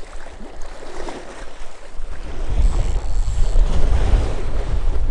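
Strong wind buffeting the microphone in low rumbling gusts that grow louder about two seconds in, over the wash of wind-driven waves.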